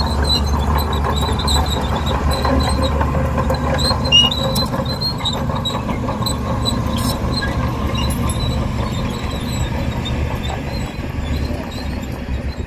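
Crawler bulldozer at work: the diesel engine runs with a steady low rumble while its steel tracks give off repeated high-pitched squeals and squeaks.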